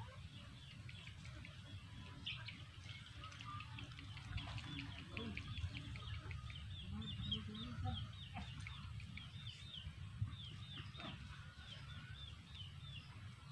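Farmyard birds: a steady run of short, high, falling chirps, several a second, with a few low chicken calls here and there over a low, steady rumble.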